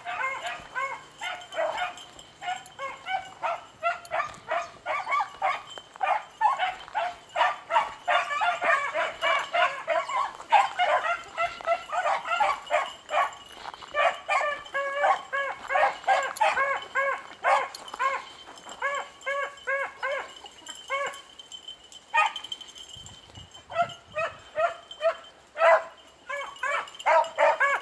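A pack of beagles baying on a rabbit's trail, many overlapping barks and bawls with a short lull about three-quarters of the way through.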